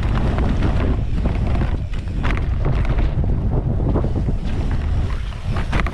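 Wind buffeting the camera microphone of a mountain biker riding fast down a dirt trail, a heavy steady rumble, with bike and trail rattle and a few sharp knocks over bumps.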